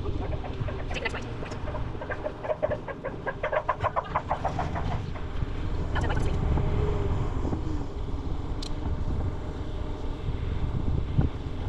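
Wind buffeting an action camera's microphone over the rumble of a Riverside 900 bike rolling along, with a quick, evenly spaced run of ticks a few seconds in.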